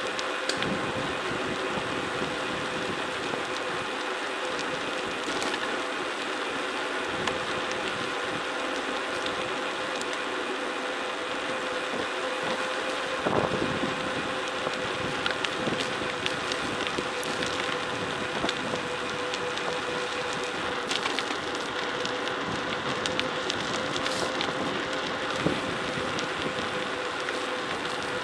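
Mountain bike rolling fast down a gravel forest road: a steady rush of tyre and rattle noise with a constant hum through it and scattered sharp clicks.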